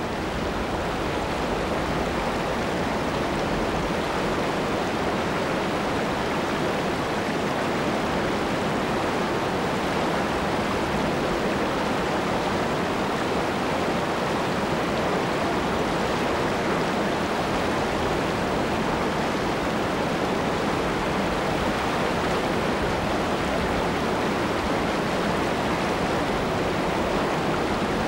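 Whitewater river rapids rushing steadily, an even, unbroken wash of churning water over rocks.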